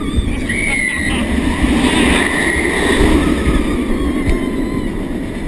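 Heavy wind buffeting on a GoPro's microphone as it rides an inverted steel roller coaster train at speed through an inversion, a dense rough rush. A faint high wavering sound rides over it from about half a second to two and a half seconds in.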